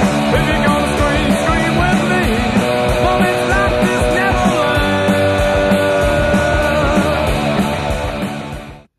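Loud rock intro music with a steady beat, fading out and cutting off near the end.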